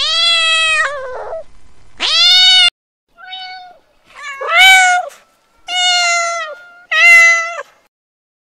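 Cat meowing over and over: six meows with short gaps, the first the longest and one in the middle much fainter.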